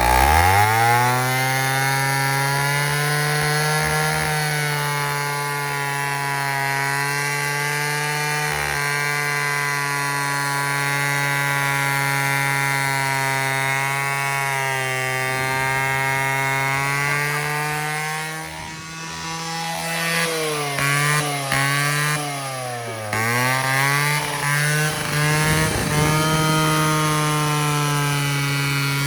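Honda Spree scooter's small two-stroke engine revving up hard and held at high revs while the rear wheel spins in a stationary burnout. About two-thirds of the way through it drops off and revs up and down unevenly for a few seconds, then holds high again.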